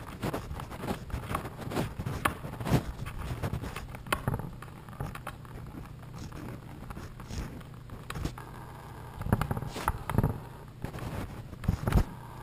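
Irregular clicking and scraping of a socket ratchet working the motorcycle's coolant drain bolt, mixed with the rub of a hand on the camera, over a steady low hum. The clicks come in clusters, thickest in the first few seconds and again near the end.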